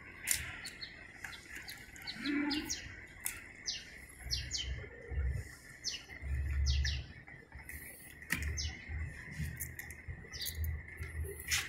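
Small birds chirping in many short, sharp calls, over a faint steady high tone, with bursts of low rumble on the microphone.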